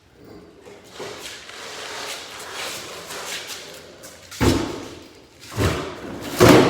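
Scuffing and rattling as a ride-on electric four-wheeler is handled, then three heavy thumps, the last the loudest, as it is moved and set down.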